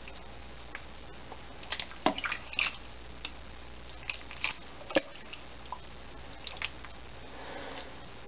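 A serving utensil knocking and scraping against a slow cooker's crock as braised beef is scooped out of the cooking liquid: scattered short clicks and knocks, a few at a time.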